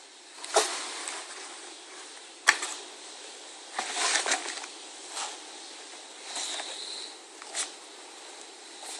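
Rustling and crinkling of a shoebox and its paper packing being handled and opened, in several short bursts, with one sharp knock about two and a half seconds in.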